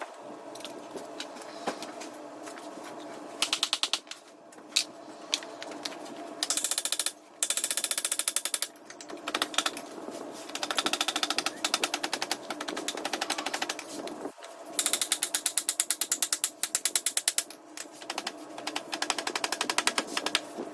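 A power tool running in bursts of fast, rattling strokes over a steady motor hum, with a few sharp knocks in between.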